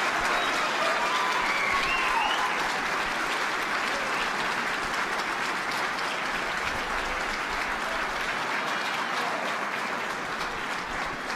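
A large crowd applauding, with a few shouts in the first couple of seconds, slowly dying down.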